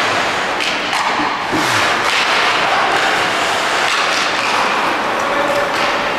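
Hockey game play: a steady wash of rink noise with several knocks and thuds from sticks, puck and boards, most of them in the first two seconds.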